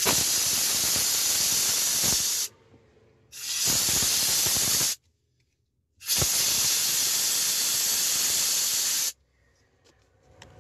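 Compressed-air blow gun blasting air in three loud hissing bursts, the last the longest, each starting and cutting off abruptly.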